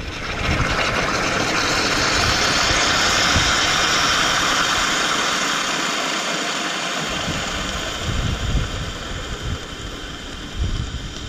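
Steady hiss of steam venting from an OMEALS flameless self-heating meal pouch as its heater pack reacts, slowly fading. Low gusts of wind rumble on the microphone.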